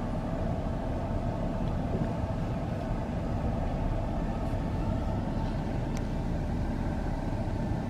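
Steady low rumble of road traffic, with a faint click about six seconds in.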